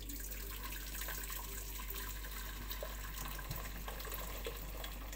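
Water poured from an electric kettle into a large stainless steel pot, a steady splashing stream.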